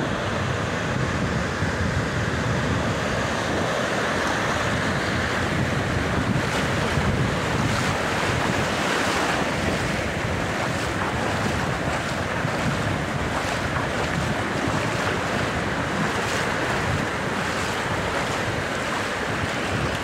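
Pacific Ocean surf breaking offshore and washing in over the shallows in a steady rush, with wind buffeting the microphone.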